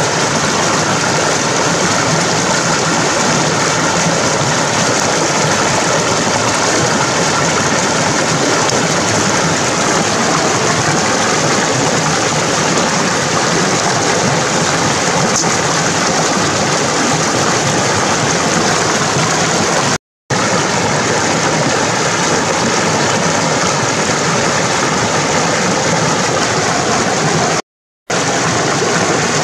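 Rushing water of a rocky stream cascading over boulders, a loud steady splash and roar of white water. The sound breaks off for a split second twice, about twenty and twenty-eight seconds in.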